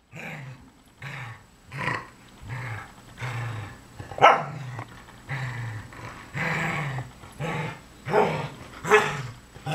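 Dogs growling in repeated short bursts while play-fighting over a tug toy, with a few louder, sharper barks or snarls: one about four seconds in and two near the end.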